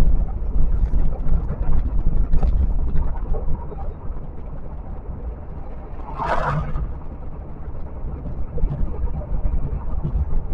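Steady low rumble of road and wind noise from a vehicle driving at highway speed, with one brief rush of noise about six seconds in.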